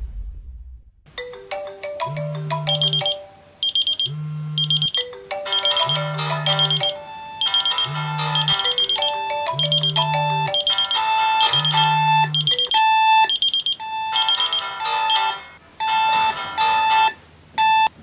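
Several alarms going off at once on iPhones, an iPod and an iPad on the bedside tables: overlapping electronic alarm melodies and short high repeating beeps, with a low buzz in six pulses. The tones drop out in stages near the end as the devices are switched off.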